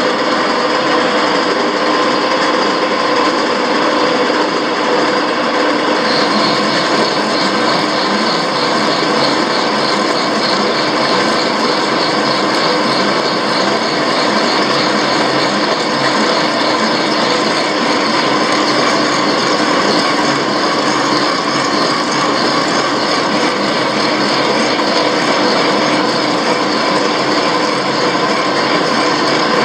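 Milling machine running a long boring bar through a bore in a steel block, with the cutter taking a steady cut and the machine's drive running. The noise is loud and unbroken, with no pauses.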